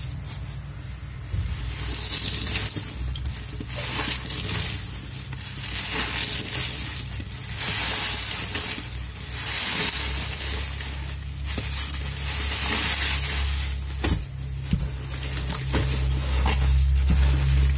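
Thick foam sponges cut from a mattress, loaded with dry cleaning powder and liquid gel, squeezed by rubber-gloved hands in a steel sink. Repeated wet squelches with the crackling fizz of dense suds, a squeeze every second or two.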